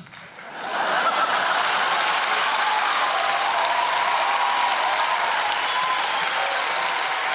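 Audience applauding and laughing. The clapping swells up within the first second after a brief lull and then holds steady.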